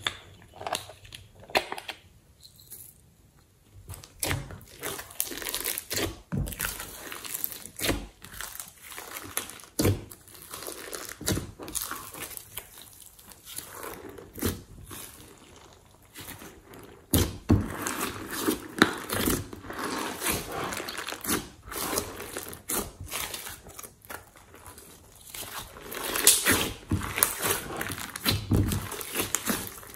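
Thick, glossy slime being squished, folded and stretched by hand in a glass dish: sticky squelches with crackling pops and clicks at an irregular pace. It starts with only a few quieter clicks and grows busier and louder after about four seconds.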